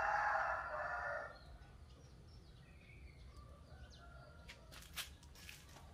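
Rooster crowing: the end of a long crow that stops about a second in. A few light clicks follow near the end.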